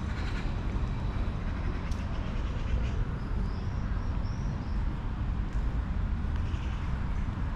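Outdoor park ambience: a steady low rumble of distant traffic and wind, with a few faint high bird chirps about halfway through.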